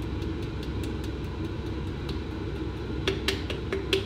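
A jar of pasta sauce being emptied into a soup pot over a steady low kitchen hum, with faint ticking. About three seconds in, a run of sharp knocks and clicks as the jar is shaken over the pot.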